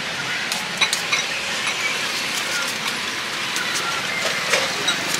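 Busy roadside street noise: a steady hiss of passing traffic with scattered sharp clicks and knocks.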